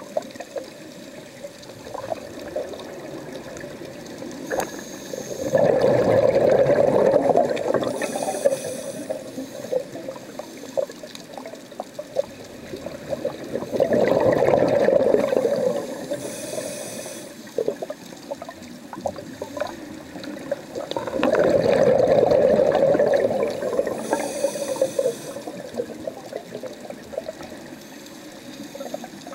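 Underwater, a scuba diver's exhaled air bubbling out of a regulator in three swells about eight seconds apart, each followed by a short high hiss. Faint scattered clicks run underneath.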